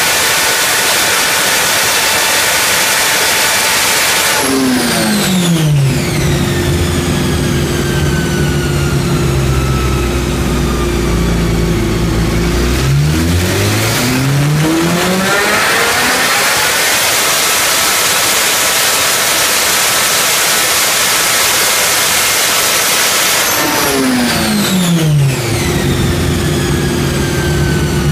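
MV Agusta Brutale 1090RR's inline-four, with the dB killer fitted in its exhaust, running hard on a chassis dyno. The revs drop sharply about four seconds in, sit low, then climb steadily to a high held note before dropping away again near the end.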